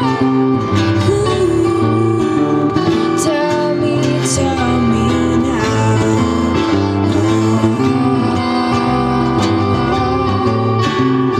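A live band playing: acoustic guitar, electric bass and electric guitar together in a steady, continuous passage.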